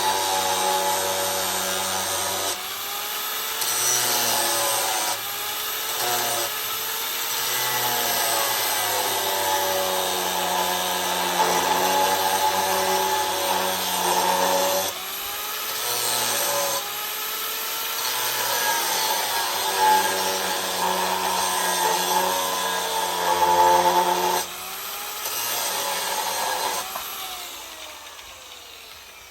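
An electric power tool runs against steel. Its motor whine dips in pitch and recovers again and again as the tool is pressed into the work. The sound changes abruptly every few seconds, in short cut-together clips.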